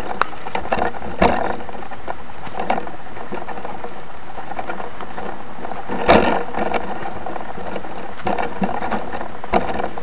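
A mountain bike rolling over a bumpy dirt trail, the bike-mounted camera rattling with a steady rushing noise and irregular knocks as the wheels hit bumps; the hardest knock comes about six seconds in.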